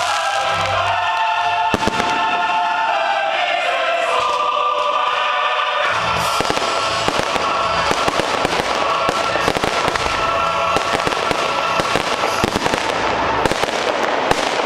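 Aerial fireworks going off in a rapid run of bursts and crackles over music with long held chords. The music is the main sound for the first few seconds, then from about six seconds in the firework bursts come thick and fast and take over.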